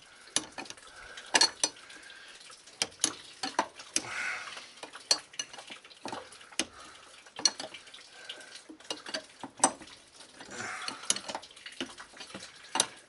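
Socket ratchet with an extension being worked on a line fitting: irregular sharp metallic clicks and clinks, some in quick clusters, with a couple of brief scraping rubs of metal on metal.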